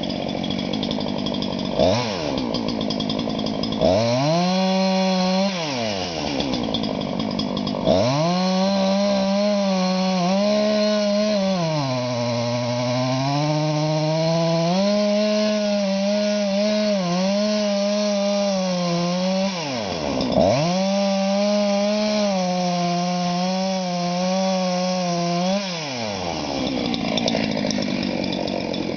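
Two-stroke chainsaw cutting into a tree trunk. It is blipped twice from idle, then held at high revs through a long cut, its pitch sagging under load about halfway. It drops back briefly, revs through a second cut, and settles to idle near the end, running on a chain the operator calls no good.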